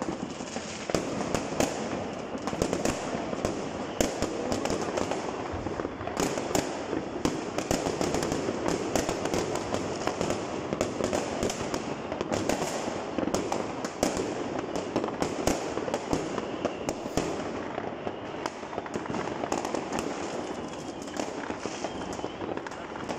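Many fireworks going off at once: a dense, continuous crackle of pops and bangs, with frequent sharper reports scattered throughout.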